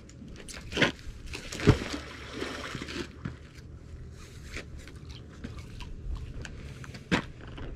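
A thrown magnet-fishing magnet hits the river with a sharp plop about two seconds in, followed by a brief splash. Scattered clicks and rustling follow as the wet rope is hauled back in hand over hand.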